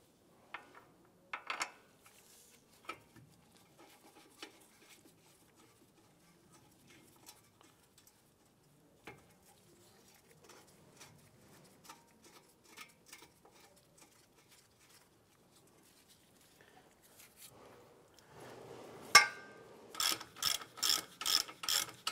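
Faint metal clicks and handling of brake parts, then a sharp click about 19 seconds in, followed by a hand ratchet wrench clicking in quick, even strokes, about two a second, as it runs a caliper bracket bolt in.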